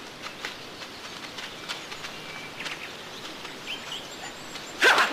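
Quiet outdoor film soundtrack ambience with a few short bird chirps, then near the end a sudden loud swish, a fight sound effect for a blow or blade swing.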